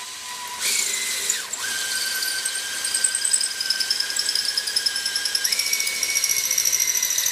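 Cordless drill boring into a dot and dab plasterboard wall, its motor whining steadily under load; the pitch dips about a second and a half in and steps up again near the end. The bit is going into a dab of plaster adhesive behind the board.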